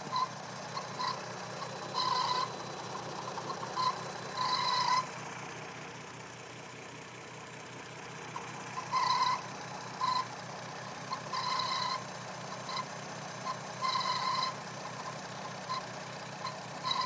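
2008 VW R32's 3.2-litre VR6 engine idling steadily, with a strange high-pitched chirping noise coming and going at irregular intervals: some brief chirps and some drawn out for about half a second. The cause is unknown.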